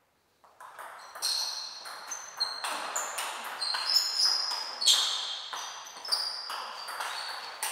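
Table tennis rally: the ball clicking off the rackets and bouncing on the table in a quick run of sharp clicks, about two to three a second, starting about half a second in.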